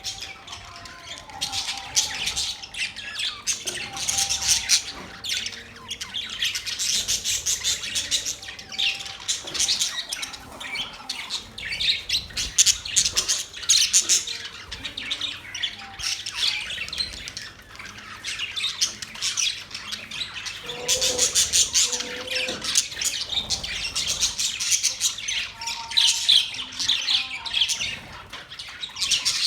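A group of budgerigars chattering and warbling together: a dense, unbroken stream of rapid high chirps, clicks and squawks from several birds at once.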